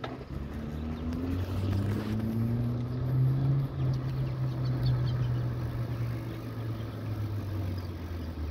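A motor vehicle's engine running, its pitch rising twice in the first few seconds. It is loudest a few seconds in and fades away near the end.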